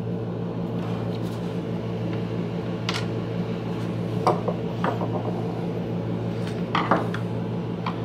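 Sharp clicks and taps of plastic parts and hand tools being handled as a vacuum cleaner's plastic motor cover is fitted back on, a handful of separate knocks over a steady low hum.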